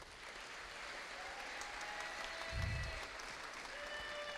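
Audience applauding, a steady patter of clapping, with a low thump about two and a half seconds in.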